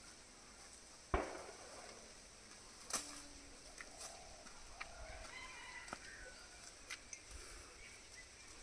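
Quiet rural ambience: faint clucking calls like those of chickens, a steady high insect hum, one sharp thump about a second in and a few scattered light clicks.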